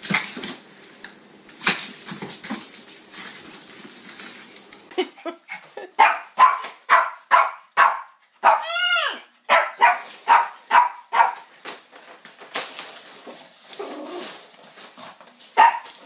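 Small dog barking in a quick run of about ten sharp barks, two to three a second, starting about five seconds in, with one drawn-out yelp that rises and falls in the middle of the run; one more bark near the end. Faint clicks and light noise come before the barking.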